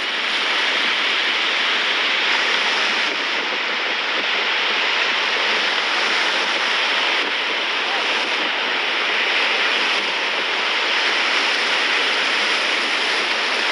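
Steady rush of whitewater on river rapids.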